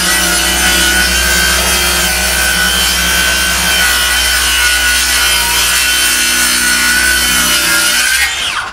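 Cordless circular saw cutting along a wooden counter top with a steady whine. Near the end the motor is released and the blade spins down, the whine falling in pitch before it stops.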